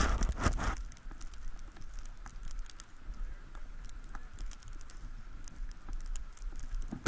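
Skis and boots shuffling on packed snow: faint scattered clicks and crunches, with a short burst of louder rushing noise at the start.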